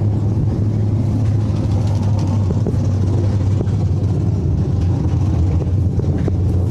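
Race car engines running on the track, a loud steady drone without clear revving or stops.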